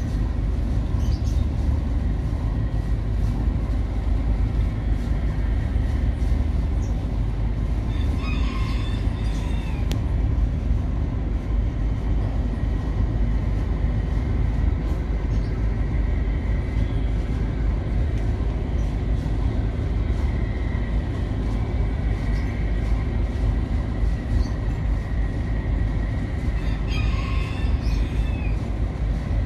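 Steady low rumble of the car carrier's engines and machinery, with a faint steady whine above it. Two brief high chirps sound about 9 seconds in and near the end.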